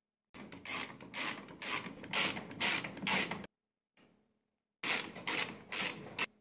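Ratchet wrench clicking in quick back-and-forth strokes as it loosens bolts on a washing machine's tub. There are two runs, with a short break between them.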